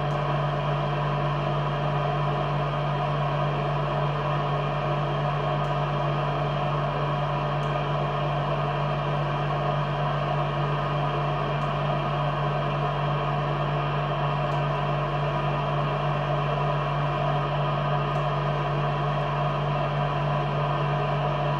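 CO2 laser engraving and cutting machine running: a steady mechanical hum with a strong low drone, with a few faint high ticks scattered through it.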